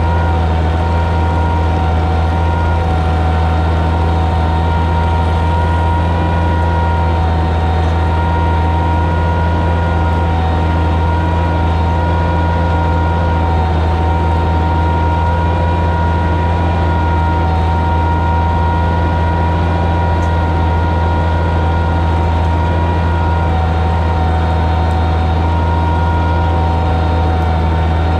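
Oliver 77 tractor's six-cylinder engine running steadily at a constant pitch under load, pulling a plow through the soil.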